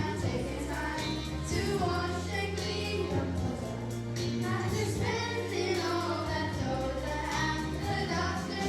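Children singing in a group over a recorded backing track with a steady bass line.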